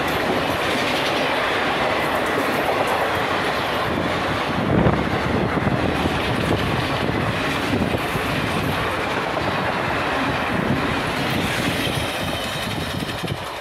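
ICF passenger coaches of an express train passing at speed close by, their wheels knocking steadily on the rails, with a heavier knock about five seconds in. The noise eases off near the end as the last coach goes by.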